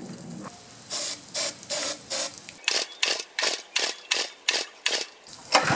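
Aerosol starting fluid sprayed in short hissing bursts into a small Honda GX engine's intake: four squirts about a second in, then a quicker run of about four squirts a second.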